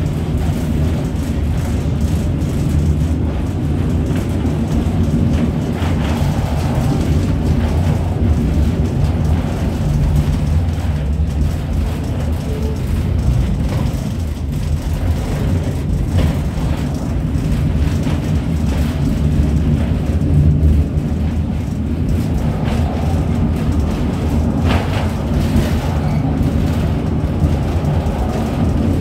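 Interior ride noise of a V3A-93 EPC tram running fast: a steady low rumble of wheels on rails and running gear, with the car body shaking and an occasional sharper click.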